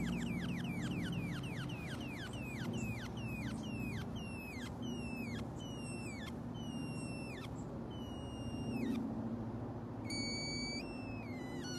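A series of falling, whistle-like 'pew' chirps. They come rapidly at first, then slow down and lengthen to about one a second. Near the end they turn into a few held tones, with a steady low hum underneath.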